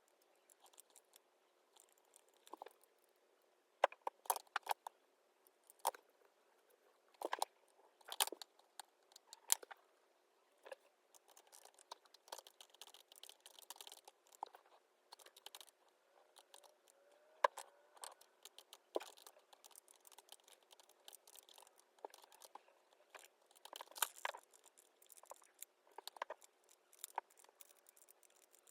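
Scattered small clicks, taps and soft paper rustling of someone working at a desk, coming irregularly, with a cluster of louder taps a few seconds in and again near the end.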